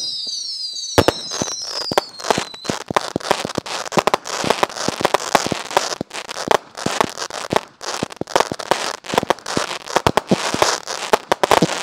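Small consumer firework cakes firing together in a finale: several overlapping whistles falling in pitch in the first couple of seconds, then a dense, rapid string of sharp pops and crackles.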